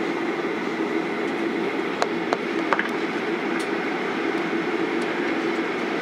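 Steady cabin noise inside a Boeing 737-800 rolling on the runway just after landing: an even hum of the engines and airflow, with a few faint clicks about two to five seconds in.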